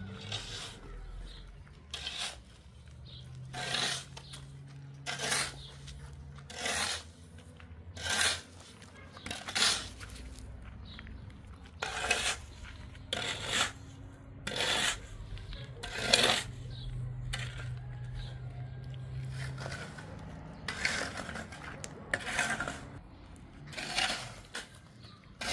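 A long, irregular run of short sharp knocks and scrapes from objects being handled, about one a second, with a faint low hum underneath during two stretches.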